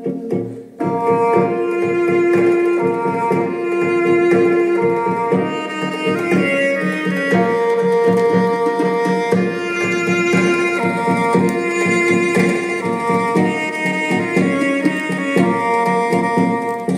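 Recorded music played through a pair of vintage JBL C46 Minigon loudspeakers driven by McIntosh MC60 amplifiers: percussion under sustained pitched notes. The level briefly dips a little under a second in, then the music carries on.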